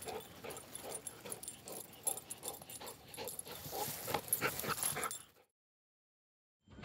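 A yellow Labrador retriever making short dog noises and rustling through dry grass as it runs with a ball in its mouth. The sound cuts to silence a little after five seconds in.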